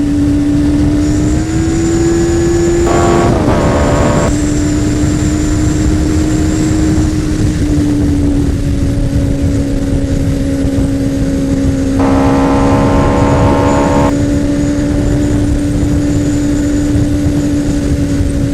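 2003 Kawasaki Z1000's inline-four running at a steady cruise through a Two Brothers M2 V.A.L.E carbon slip-on exhaust, with wind rushing over the microphone. The engine note rises slightly about a second and a half in and then holds steady.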